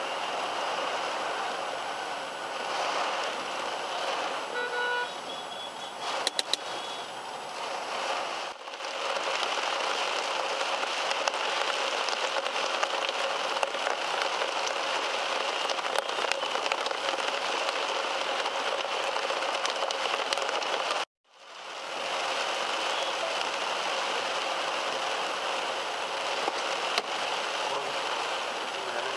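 Heavy rain drumming on a car's roof and windshield, heard from inside the cabin, over traffic noise. A brief tone sounds about five seconds in, and the sound drops out suddenly about two-thirds of the way through before fading back in.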